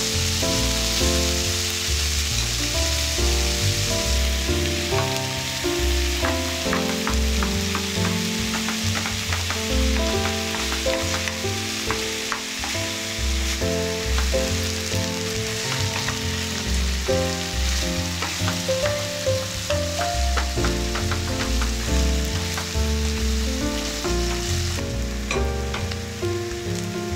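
Chicken pieces and chopped onion sizzling in oil in a nonstick frying pan as the chicken skin browns, with clicks and scrapes of a wooden spatula stirring them through the middle stretch. Background music with stepping notes plays underneath.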